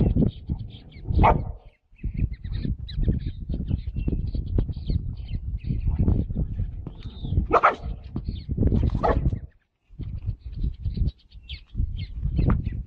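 A dog barking a few times, spread out, over a steady low rumbling noise.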